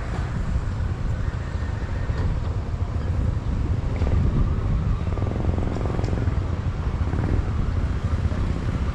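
Road traffic running steadily past a level crossing, with wind rumbling on the microphone.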